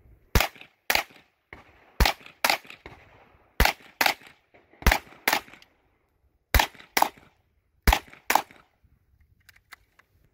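GSG-16 .22 LR semi-automatic rifle fired in quick pairs: about twelve sharp shots, two about half a second apart, then a pause of roughly a second before the next pair. A few faint clicks follow near the end.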